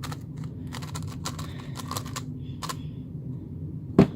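X-Man Galaxy V2 M magnetic Megaminx being turned by hand: irregular light clicks of its faces snapping into place, with one sharper click about four seconds in.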